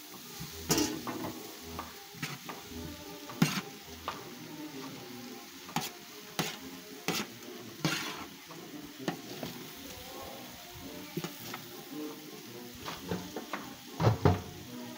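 Strips of nopal cactus and onion sizzling on a hot metal griddle (comal), with a metal utensil scraping and clicking irregularly against the griddle as they are stirred.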